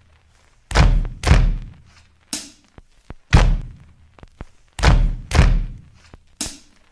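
About seven deep, heavy thumps, each ringing out with an echo, at an uneven pace; two pairs fall about half a second apart.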